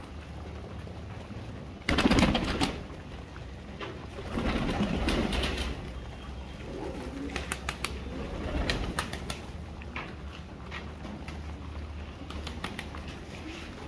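A flock of Siraji (Lahore) pigeons cooing as they crowd and feed, with a sudden loud rustling burst about two seconds in and scattered sharp clicks later on.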